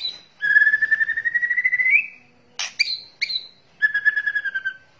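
White-rumped shama (murai batu) giving its rattling kretekan call. A long rapid rattle rises slightly in pitch, then come a few sharp short notes and a second, shorter rattle.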